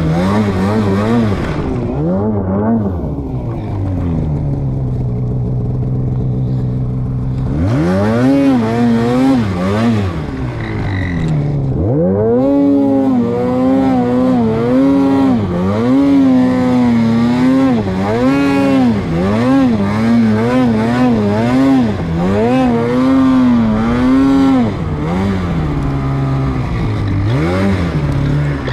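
Snowmobile engine being ridden hard, revving up and down over and over. The pitch holds fairly steady for a few seconds early on, then rises and falls about once a second from around eight seconds in as the throttle is worked.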